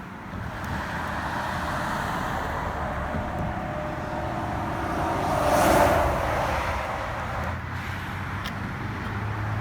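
Road traffic: a steady hiss of cars, with one vehicle passing close, its tyre noise swelling to a peak about halfway through and then fading.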